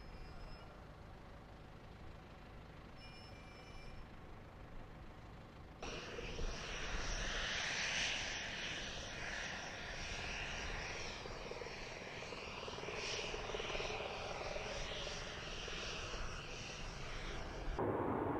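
Jet noise from the nEUROn unmanned combat aircraft's single Adour turbofan: after a faint low hum, a loud, steady rushing hiss sets in suddenly about six seconds in. Near the end it changes abruptly to a duller, lower rumble as the aircraft flies.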